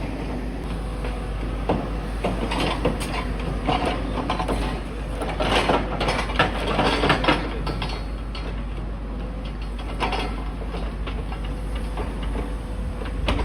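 Demolition excavator working a debris pile with its jaws: irregular clanks and knocks of metal and timber over a steady low engine rumble.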